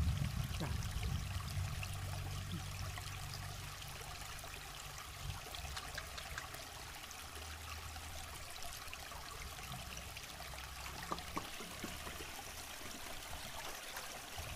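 A river flowing steadily, an even rushing of water.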